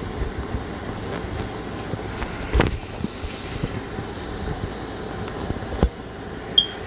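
Handling noise of a phone held in the hand while it is moved and repositioned: rubbing and small knocks, with two louder knocks about two and a half and six seconds in, over a steady background noise. A short high tone sounds near the end.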